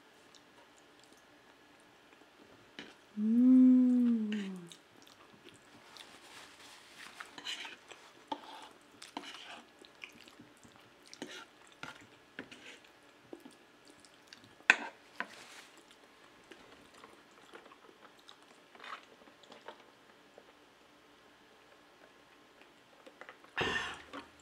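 Close-up eating sounds of a person chewing mouthfuls of spaghetti in sauce, with small wet mouth clicks scattered throughout. A loud hummed "mmm" rises and falls about three seconds in, and there is a short louder sound near the end.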